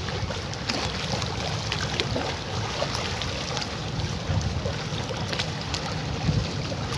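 Wind rumbling on the microphone over a steady outdoor background, with a few faint scattered clicks.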